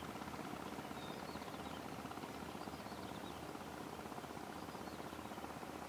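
A tour boat's engine running steadily: a low, even drone with a fast regular throb.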